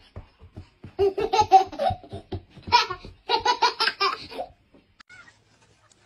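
A toddler laughing hard in quick bursts of belly laughs and giggles, with short breaks between, dying away about a second before the end.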